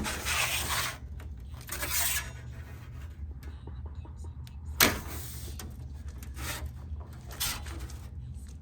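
Hand work on a sheet-metal patch piece: short scraping and rubbing strokes, with a sharp knock about five seconds in, over a steady low hum.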